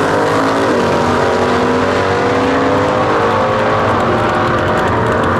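Two V8-powered gasser drag cars at full throttle down a quarter-mile drag strip, their engines climbing in pitch, dipping briefly at a gear change about a second in and again near four seconds, then pulling up again.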